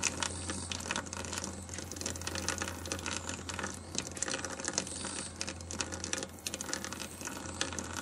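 Stainless-steel honey press working comb, with a steady low hum under dense, rapid clicking and crackling, while honey runs from its spout.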